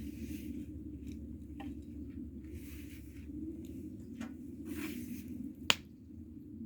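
Wood bonfire crackling, with scattered small pops and one sharp, loud snap near the end, over a steady low rumble.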